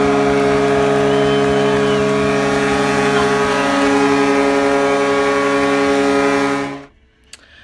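Hockey arena goal horn blaring a long, steady chord over a cheering crowd, sounding for the home team's Canucks win; it cuts off suddenly near the end.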